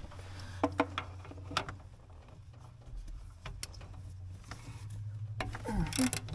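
Hand wrench work on the bolts of a dozer's transmission pump mounting plate: a few sharp metallic clicks and taps of a steel wrench on bolts, then a louder scraping noise near the end, over a low steady hum.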